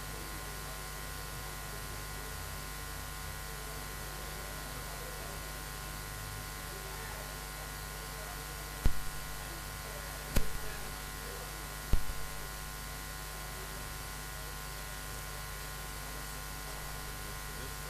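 Steady electrical mains hum and buzz, with three sharp knocks about a second and a half apart near the middle.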